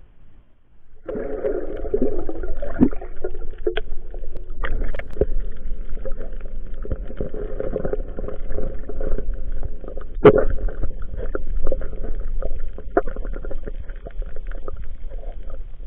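Muffled underwater sound through an action camera's housing, starting about a second in as the camera goes under: gurgling water with a low rumble and scattered sharp clicks and knocks, the loudest about ten seconds in.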